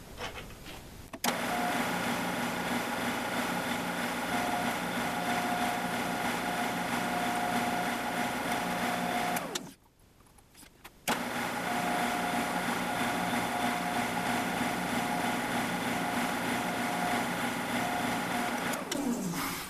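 Drill press motor running steadily while a small twist drill bores tap-drill holes for a 6-32 tap into an aluminium pin. The sound stops for a moment about halfway, starts again, and the motor winds down with a falling pitch just before the end.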